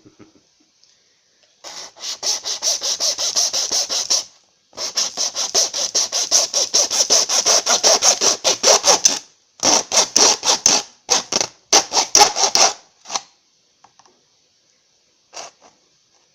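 A blade sawing back and forth through a toy, rapid rasping strokes about five a second in two long runs, then shorter runs of slower strokes that stop about thirteen seconds in, with a stray stroke or two after.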